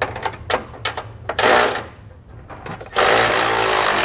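Cordless electric ratchet running in two bursts, a short one about a second and a half in and a longer one of about a second near the end, as it tightens a bolt on the truck's base plate bracket. Light metal clicks of socket and wrench come between the bursts.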